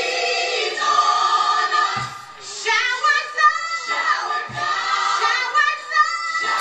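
Gospel choir singing with music, holding long sustained notes that break briefly about two seconds in.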